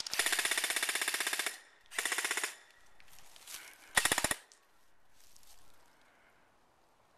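Airsoft guns firing on full auto: a long burst of rapid clicks lasting about a second and a half, a shorter burst about two seconds in, and a brief, loudest burst about four seconds in.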